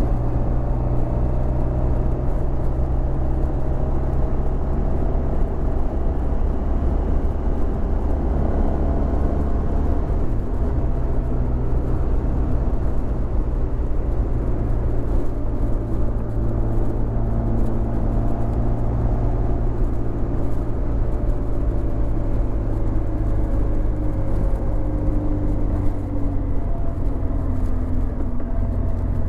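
Honda VFR1200X Crosstourer's V4 engine, with an Akrapovic titanium exhaust, running steadily under way, its pitch drifting slowly up and down at a fairly even speed.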